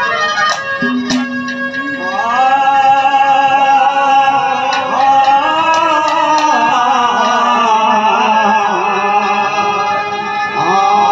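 Haryanvi ragni folk music: a male voice holds long, wavering sung notes over instrumental accompaniment, with a couple of sharp percussion strikes about a second in.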